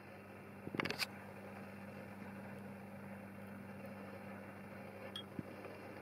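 Steady low hum with a short burst of sharp clicks and knocks about a second in, and a light metallic clink of a fork against the bowl near the end.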